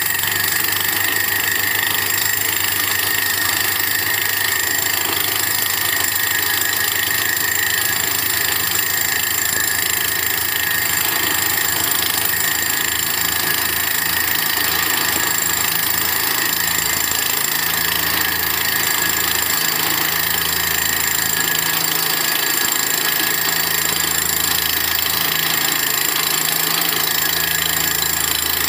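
Borewell drilling rig running steadily: a constant engine drone under an even, high hiss.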